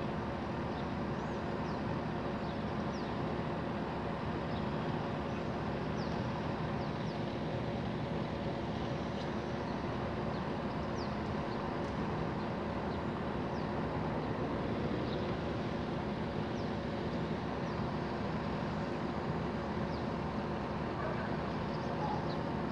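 Steady background hum and noise, with faint short high chirps now and then.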